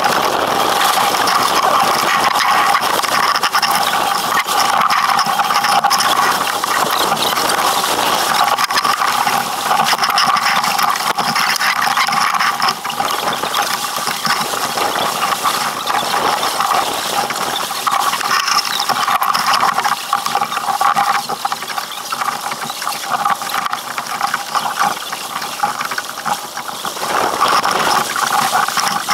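Steady rush of water along the hull of an Impala 28 yacht sailing at speed, mixed with wind noise, easing a little for a few seconds in the second half.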